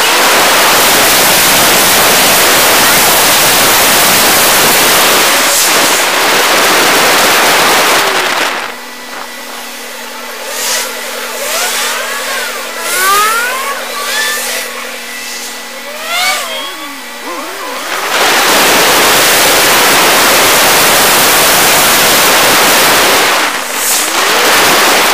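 Loud road and wind noise from a car driving, picked up by a dashcam's built-in microphone. About a third of the way in it drops to a quieter steady hum with a few short rising and falling chirps while the car waits at a red light, and the loud driving noise comes back in the second half.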